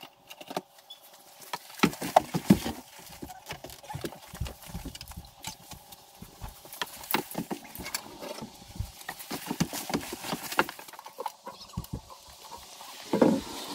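Irregular knocks, clicks and clunks of hard motorcycle pannier cases being handled, lifted and latched on and off the bike's pannier rack, with the loudest clunks about two seconds in and near the end.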